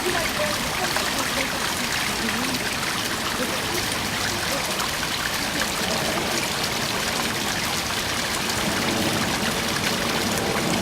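Waterfall making a steady rush of falling water, with small irregular gurgles underneath.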